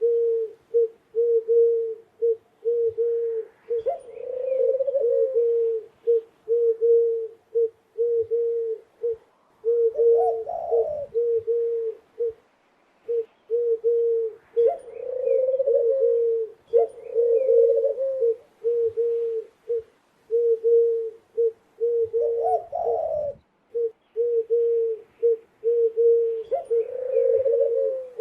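Doves cooing: steady runs of short, low coos at about two to three a second, broken every few seconds by a longer, rolling coo pitched a little higher.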